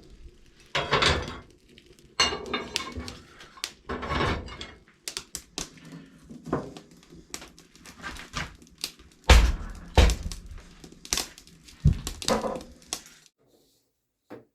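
Handling noises of chores: repeated clattering, knocks and scraping of objects being moved about, with a few heavy thumps, stopping abruptly about a second before the end.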